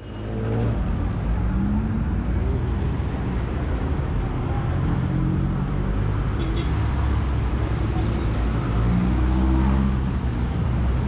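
Steady low rumble of a vehicle in motion amid road traffic noise, its engine pitch rising and falling a few times.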